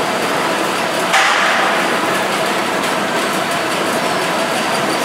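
Citrus sizing machine and its exit conveyor belts running: a steady mechanical din with frequent small knocks and clatter, and a sudden louder burst of clatter about a second in.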